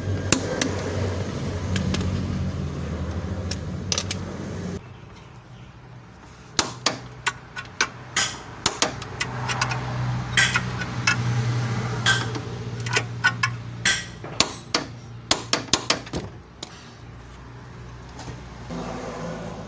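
Socket ratchet wrench clicking as a lower control arm bolt is turned: a run of sharp metallic clicks, about two or three a second, over a low hum.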